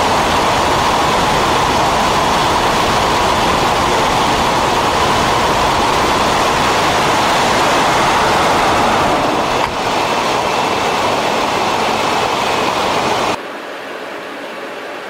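Loud, steady rush of air through the open bomb bay of a B-52 Stratofortress in flight. About ten seconds in there is a short knock and the rush eases a little as the bay doors close. Near the end it cuts abruptly to a quieter, steady aircraft hum.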